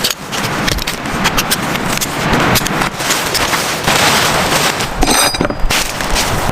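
Heavy rain falling: a dense hiss with many sharp, irregular hits of close drops.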